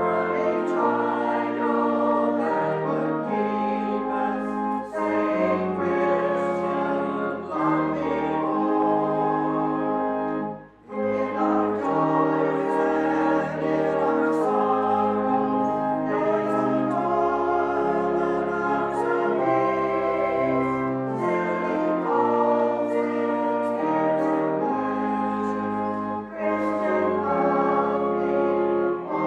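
A congregation singing a hymn with instrumental accompaniment: sustained chords that change note by note, with one brief break about eleven seconds in.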